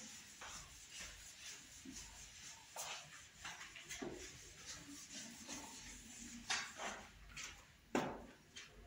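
Whiteboard eraser rubbing across a whiteboard in repeated short wiping strokes, with a sharp knock near the end.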